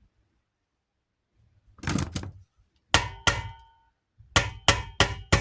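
Hammer striking metal with a ringing clang on each blow: a couple of single knocks, then an even run of taps at about three a second.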